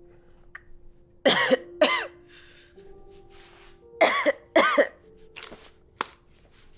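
Short, loud vocal bursts from a person, in two pairs about three seconds apart, over soft sustained music notes that change pitch now and then. A sharp click comes near the end.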